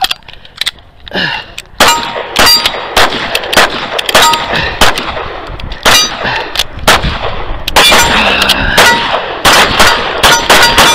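Handgun fire, a string of sharp shots coming thick and fast from about two seconds in, with steel plate targets ringing with a short clear ding as they are hit.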